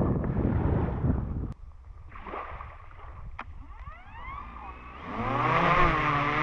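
Wind noise on the microphone, cut off sharply about a second and a half in; near the end, a quadcopter drone's motors spin up and run with a steady whine that dips and rises in pitch as the throttle changes.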